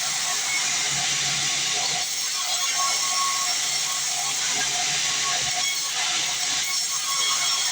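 Sawmill saw cutting through a small log: a steady, unbroken hiss of the blade running through wood.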